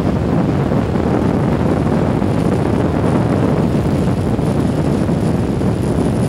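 Steady engine and rotor noise of a helicopter, heard from on board with wind on the microphone, with a faint high whine throughout.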